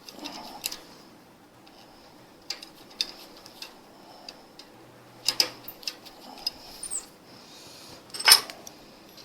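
Sparse light metal clicks and taps a few seconds apart, the loudest near the end, as a spanner works a nut welded onto a broken cylinder-head stud.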